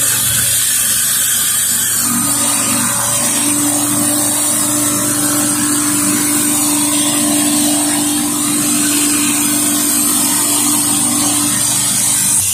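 A pressure washer's engine running steadily under load, with the hiss of high-pressure water, as a Whisper Wash surface cleaner cleans a concrete driveway. A steady hum settles in about two seconds in.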